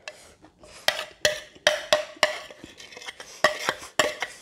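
A metal spoon scrapes and clinks against a ceramic plate, scooping up the last of the fried rice: a run of sharp, uneven clinks, each leaving a brief ring from the plate.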